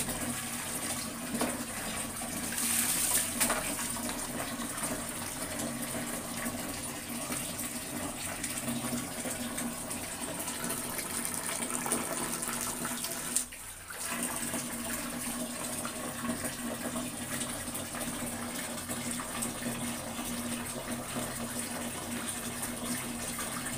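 Water splashing and sloshing as live snails are rubbed and rinsed by hand in a plastic basin of water, over steadily running water. The sound drops out briefly about halfway through.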